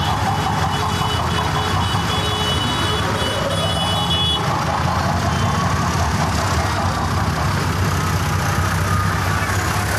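Diesel tractor engine running steadily at close range, with high-pitched beeping tones on and off over the first four seconds and a street crowd's voices in the background.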